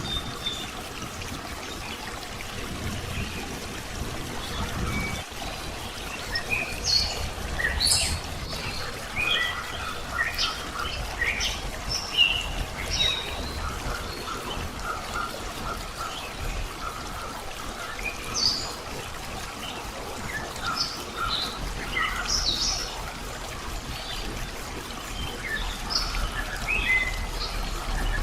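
Songbirds chirping in many short, scattered calls over a steady trickle of running water. The calls are sparse at first and grow busier from about six seconds in.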